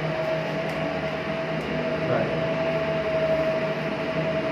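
Steady mechanical hum of pool plant machinery, with a constant mid-pitched whine over an even noise.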